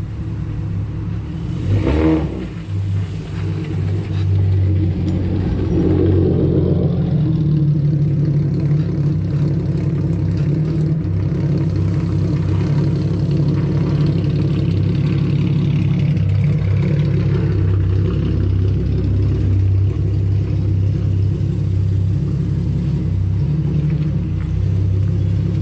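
Car engine running steadily, getting louder about four seconds in and then holding level. A single knock comes about two seconds in.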